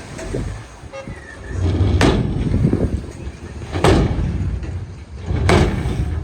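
Heavy earthmoving machinery running with a low rumble, broken by three loud metallic bangs spaced under two seconds apart.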